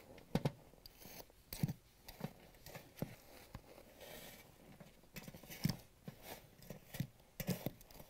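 Utility knife blade scraping and cutting along a metal dishwasher access panel to free the glued-on insulation, with a brief soft tearing sound as the insulation is pulled away. Quiet, irregular short scrapes and ticks.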